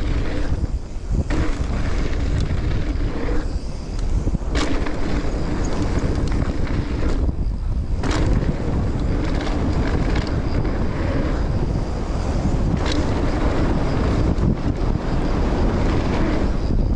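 Mountain bike rolling fast down a dirt jump line, tyre roar and wind on the camera microphone. A few times the noise drops briefly and is followed by a sharp knock, as the bike leaves the ground over a jump and lands.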